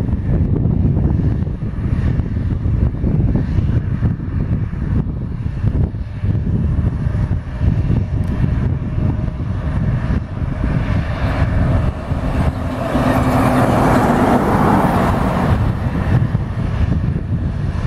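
Airbus A320 jet engines at takeoff power as the airliner climbs away: a steady low rumble that swells into a louder rushing roar about two thirds of the way through, then eases.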